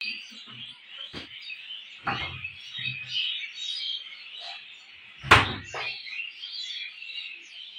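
Small birds chirping steadily in the background, with a few soft knocks and one loud thump about five seconds in as a refrigerator door is shut.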